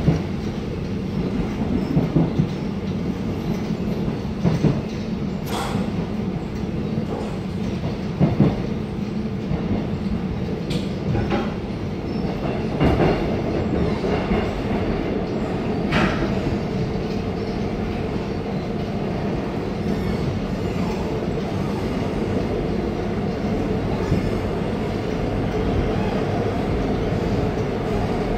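Seoul Line 1 subway car running, heard from inside the car: a steady low rumble of wheels and running gear. Scattered knocks from the track come mostly in the first half, and there are a couple of brief wheel squeals.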